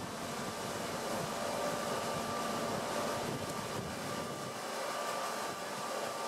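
Steady mechanical hum over an even hiss, with faint steady tones held throughout.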